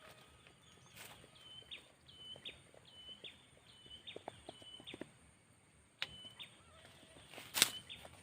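A bird calling: a short high note repeated over and over, mostly in pairs. A few sharp knocks come in between, the loudest near the end.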